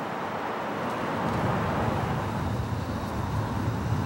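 Steady hiss of road traffic, with a low rumble coming in about a second and a half in.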